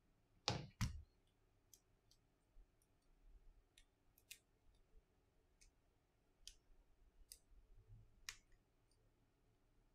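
Two sharp clicks about half a second in, then scattered faint ticks and taps: the small plastic and metal parts of a Samsung Galaxy A70 being handled as its replacement charging port board is fitted by hand.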